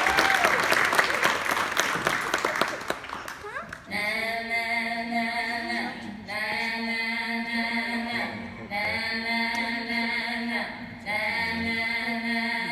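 Audience applause dying away over the first three seconds. About four seconds in, slow vocal music begins: long held sung notes in phrases of about two seconds over a steady low note.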